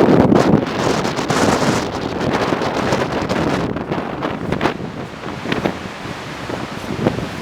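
Hurricane wind gusting hard against the microphone, loudest in the first second or so and easing after, over the wash of storm surf.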